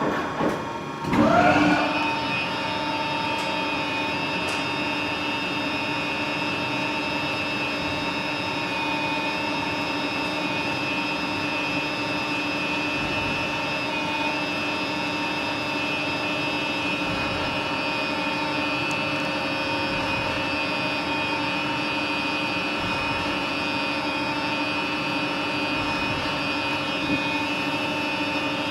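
Gildemeister NEF CT40 CNC lathe spindle drive running: its whine dips and then rises back up to speed about a second in, then holds a steady whine at constant speed.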